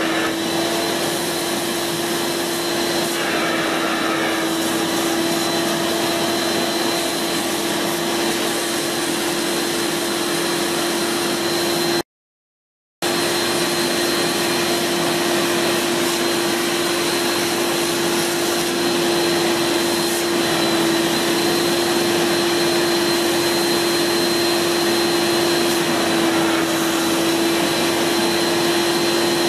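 Kärcher Puzzi 100 spray-extraction carpet and upholstery cleaner running steadily under suction, with a constant hum and a fainter high whine, as its upholstery nozzle draws across a wet fabric seat. The sound cuts out for about a second about twelve seconds in, then carries on unchanged.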